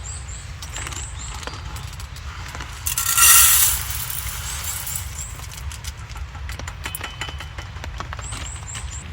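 Small clicks and clinks from camp cooking gear being handled, with a hissing rush lasting about a second, about three seconds in, over a steady low rumble.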